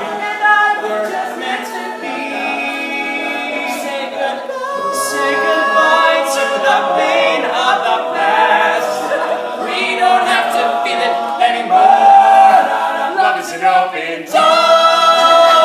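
All-male a cappella group singing, lead voices over the rest of the group's vocal backing. About a second before the end the whole group swells louder into a full held chord.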